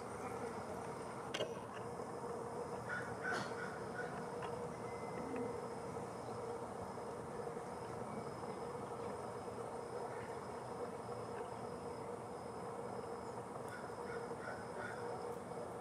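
Steady outdoor background hum with a few short, faint bird calls, in a small cluster about three seconds in and again near the end, and a single click early on.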